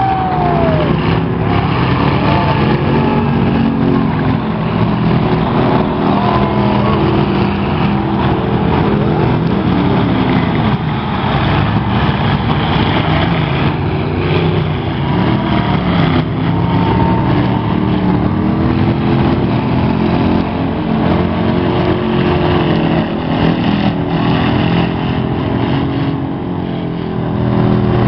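Several eight-cylinder demolition derby car engines running loud and revving at once, their pitch rising and falling as the cars accelerate and back off, with a few faint knocks of cars hitting each other.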